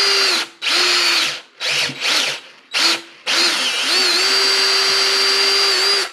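Electric drill with a long auger bit, drilling out the old seat support from a wicker chair's frame. It is triggered in several short bursts, then held running for about three seconds, with its pitch dipping briefly under load, and it stops suddenly at the end.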